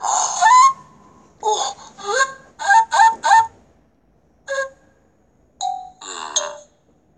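Cartoon characters' gibberish voices from an animated storybook app: a string of short babbled syllables, several gliding upward in pitch, with a quick run of three near the middle and short pauses between.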